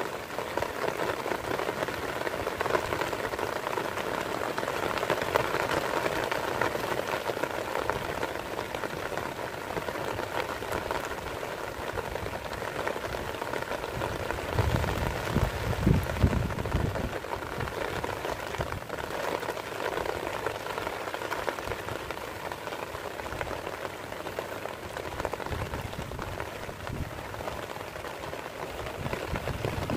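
Heavy rain falling on grass and a shallow puddle, a steady hiss of drops. A brief low rumble rises and fades about halfway through.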